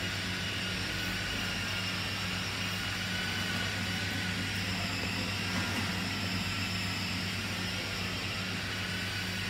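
Steady low hum with an even hiss inside a car with the ignition on, unchanging throughout.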